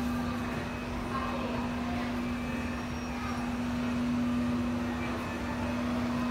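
A steady low hum on a single pitch, over the even background noise of a shop with faint, indistinct voices.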